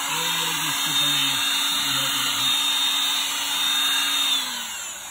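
ALLOYMAN 20V cordless leaf blower-vacuum running: a steady high motor whine over loud rushing air. About four seconds in it is switched off and the whine slides down in pitch as the fan winds down.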